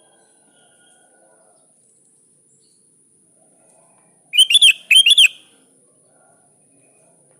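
Sooty-headed bulbul (kutilang) calling: two quick bubbly phrases in close succession a little past halfway, the kind of call used to draw a rival.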